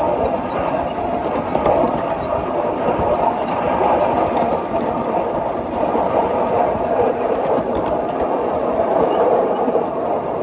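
5-inch gauge Maxitrak GWR 94xx pannier tank steam locomotive running along the track, heard from the riding truck just behind it: a steady, loud running noise of the engine and its wheels on the rails.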